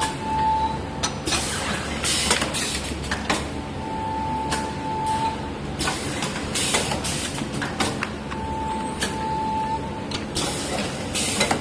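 Full-auto turntable clipping machine running through its cycle: repeated sharp hisses and clacks, with a high steady tone about a second long that comes back roughly every four seconds.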